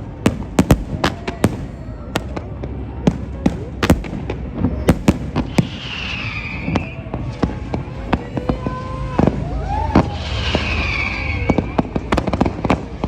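Fireworks display: a dense, continuous barrage of sharp bangs, several a second, over a low rumble, with voices in the watching crowd underneath.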